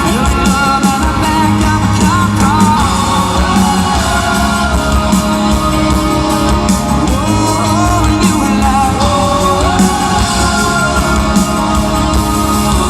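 Live band performing a country song on a concert stage, loud and steady, with a lead melody that slides between notes over drums and bass, and singing in a large hall.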